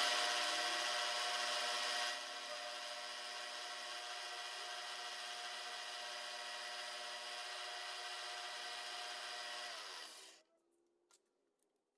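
Milling machine spindle running as an end mill takes a light cut across a brass part: a steady whine of several tones with a high hiss, louder for the first two seconds. About ten seconds in the spindle winds down and stops.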